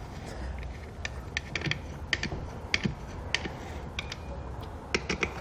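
Irregular light metallic clicks and ticks of steel button cap screws and a steel mounting bracket being handled and threaded in by hand on an air spring's roll plate, a dozen or so clicks with a few sharper ones near the middle.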